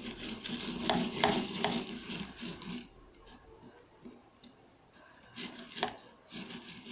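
Small plastic containers and utensils being handled on a table: a few sharp clicks and light knocks with rubbing and rustling, quieter in the middle.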